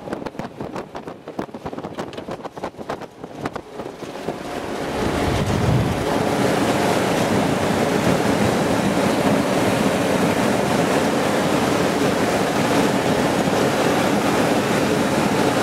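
Irregular rattles and knocks, then from about four seconds in a loud, steady rush of wind and road noise as the mine-roller MRAP drives at speed, the wind blowing across the microphone in the gunner's position.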